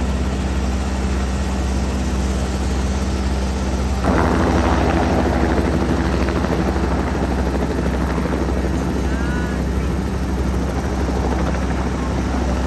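Helicopter running at close range: a steady low drone of engine and rotor, turning suddenly louder and noisier about four seconds in.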